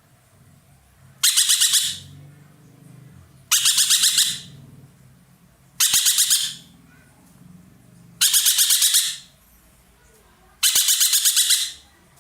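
An ekek keling songbird calling loudly in a series of five harsh bursts. Each burst is a rapid run of about eight chattering notes lasting under a second, repeated about every two and a half seconds.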